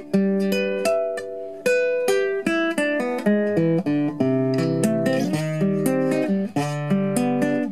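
Classical guitar played solo fingerstyle: a quick run of plucked melody notes over a sounding bass line.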